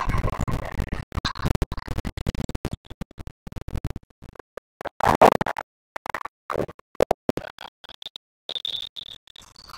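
Choppy, glitching audio from a first-time mic'd-up recording of a gym basketball game: short bursts of noise and knocks keep cutting off into dead silence and back, which gives a stuttering, scratch-like sound, with a brief high squeal near the end.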